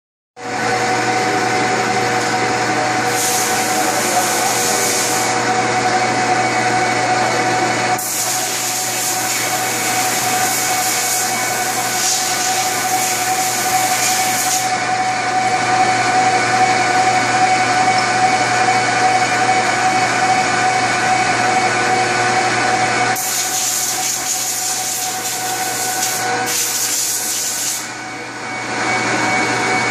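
Rogi WM460A heavy industrial metal lathe running, a steady machine whine from its motor and geared headstock with constant tones. A hissing layer comes and goes several times, and the level dips briefly near the end.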